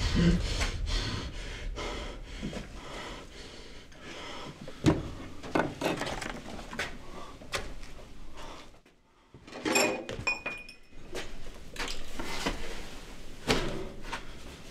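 Scattered knocks and clicks of handling and movement in a small room, with a brief drop to near silence and then a short ringing, glassy clink about ten seconds in.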